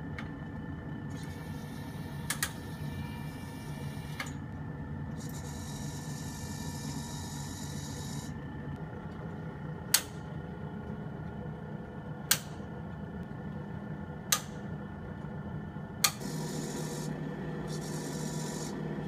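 Homemade spin-art machine running: a steady motor hum, with about six sharp clicks as control switches are pressed and stretches of hiss that start and stop. About sixteen seconds in the hum changes and grows a little louder.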